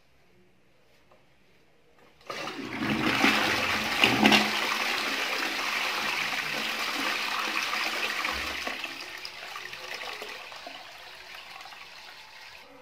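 A toilet flushing. The rush of water starts suddenly about two seconds in, runs loud and steady for several seconds, then gradually dies down toward the end.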